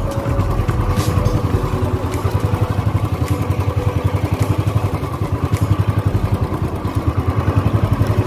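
Motorcycle engine running with a steady, fast low pulsing, and faint light clicks about once a second.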